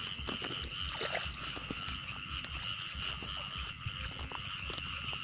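A dense chorus of field frogs calling continuously from flooded rice paddies, a steady layered trilling with many overlapping short calls. Soft low thuds run underneath.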